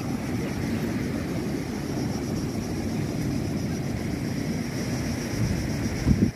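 Wind buffeting the microphone, a steady, uneven low rumble, with a brief louder bump near the end.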